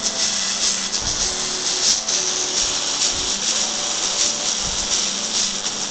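Music playing through a homemade Bluetooth speaker with its own preamp and amplifier, fairly loud and bright, with a heavy hiss-like top end.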